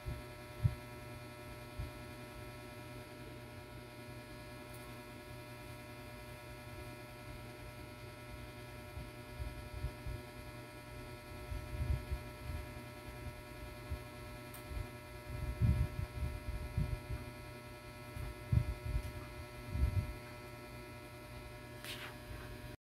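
A steady electrical hum made of several thin steady tones, with soft low thuds now and then, more of them in the second half.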